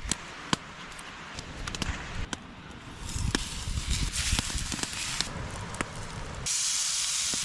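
Food cooking over an open fire: crackling with sharp pops scattered throughout, and a louder steady sizzling hiss setting in near the end.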